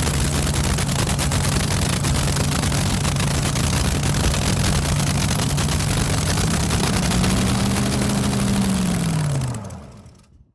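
An engine running loudly at a steady speed, its pitch rising slightly near the end and then falling as it is shut off and winds down to a stop.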